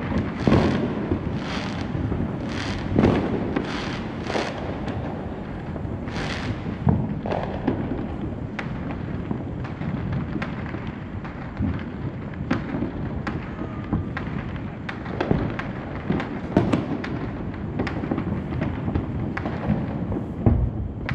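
Neighbourhood consumer fireworks going off many at once: overlapping bangs with a ringing tail and a constant crackle of smaller pops. A quick series of louder bangs comes in the first four seconds, another about six seconds in, and then denser, smaller pops.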